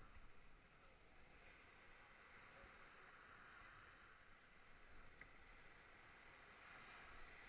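Faint, even wash of small surf and foam running up the sand around the surfboat's hull, swelling gently twice.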